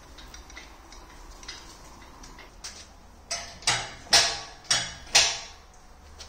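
Five sharp metallic knocks about half a second apart, each ringing briefly, after a few faint ticks: tools and steel parts knocking during work on a car's gearbox and driveshaft.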